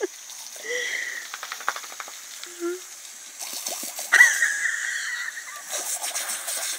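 Garden hose water jet hissing and splattering against a dog's mouth as it bites at the spray, loudest about four seconds in. A few brief faint voice sounds near the start.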